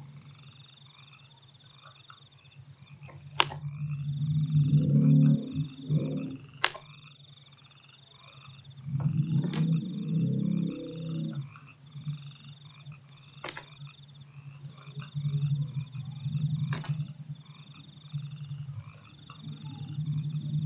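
A chorus of frogs calling steadily in the background, with repeating chirps and two louder bouts of low croaking about four and nine seconds in. Five sharp clicks, roughly every three seconds, come from the computer mouse as the mesh is edited.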